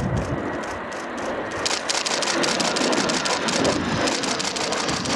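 Engine noise of a Textron AirLand Scorpion jet's twin turbofans as it flies past at low level. From about a second and a half in, a fast, even run of clicks sounds over it.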